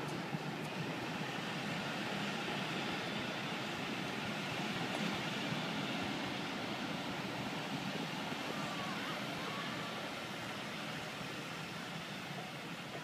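Passenger coaches of a departing train rolling slowly past, a steady rumble that eases off a little near the end.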